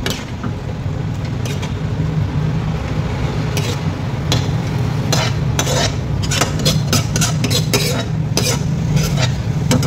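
A metal spoon scraping and clinking against a metal wok and a steel bowl as cooked momo filling is scooped out, with the strokes coming thicker in the second half. A steady low hum runs underneath.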